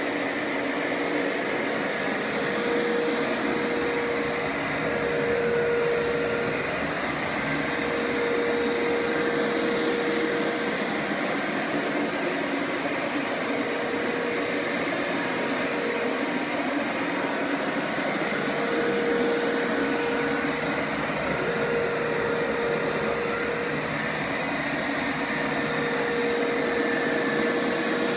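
Hoover Power Scrub Deluxe carpet washer (FH50150NC) running steadily, its motor noise carrying a steady whine whose strength swells and fades every few seconds.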